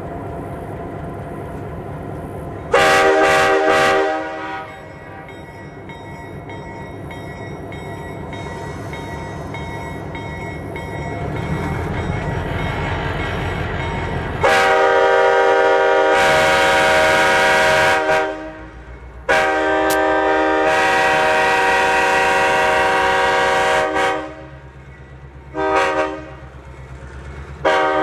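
Locomotive air horn sounding a chord of several tones over the low rumble of the diesel engine: one short blast, then a long, long, short, long sequence, the grade-crossing signal.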